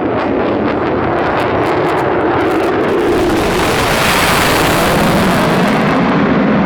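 F-22 Raptor's twin Pratt & Whitney F119 turbofans roaring in a loud low pass. There is a ragged crackle in the first few seconds, and the hiss peaks about four to five seconds in as the jet goes by closest.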